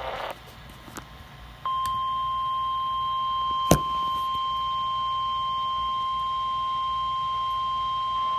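NOAA Weather Radio warning alarm tone: a single steady 1050 Hz beep that comes on about a second and a half in and holds, heard through a weather radio receiver. It signals that a warning message is about to be read. A brief burst of static comes at the very start, and a sharp click about halfway through is the loudest moment.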